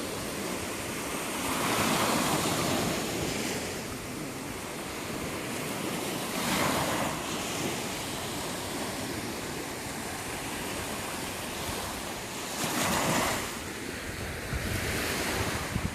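Sea waves breaking and washing on a beach, a steady surf wash that swells as waves break about two seconds in, around six and a half seconds in, and near thirteen seconds, with some wind buffeting the microphone.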